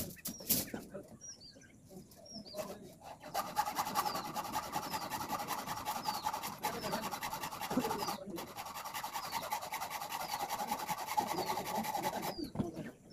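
A couple of knocks, then a steady rasping, scraping noise of a tool working the steel gate frame for about nine seconds, with a brief break near the middle. A small bird repeats a short falling chirp over it.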